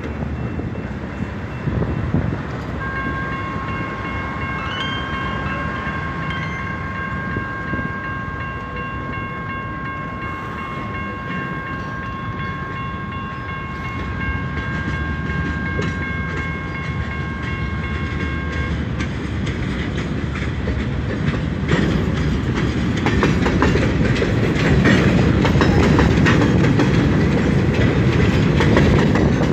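A CSX freight train's horn holds one long chord of several notes for about fifteen seconds as the train nears the crossing. It then gives way to the rumble and clickety-clack of hopper cars rolling past, which grows louder toward the end.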